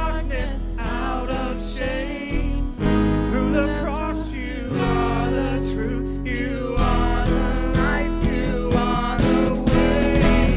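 A live worship band: a man singing lead over electric bass guitar and acoustic guitar.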